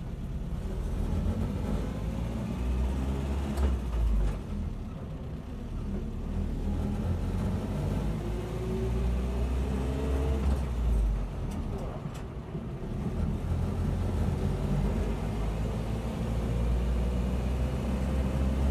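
Inside the cab of a 1976 Land Rover Series 3 109 on the road, its 2.25-litre petrol four-cylinder runs through a newly fitted exhaust, quieter than the old holed and blowing one, more of an engine purr than an exhaust roar, though still noisy with no soundproofing. A heavy low rumble runs throughout, and the engine note rises in pitch twice as the vehicle picks up speed.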